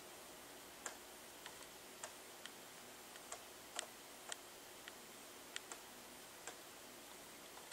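Faint steady hiss with about a dozen sharp, irregularly spaced clicks, roughly one or two a second.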